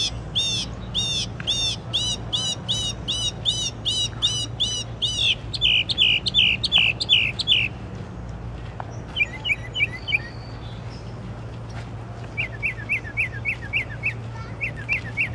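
A songbird singing a varied night song. First a short rising-and-falling note repeated about two and a half times a second for five seconds, then a run of faster down-slurred notes, brief bursts of quick notes, and a rapid series of notes near the end. A steady low hum runs underneath.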